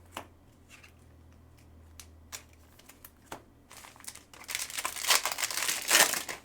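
A few light clicks as trading cards are handled, then, about four seconds in, a dense crinkling as a card pack's plastic wrapper is torn open and handled.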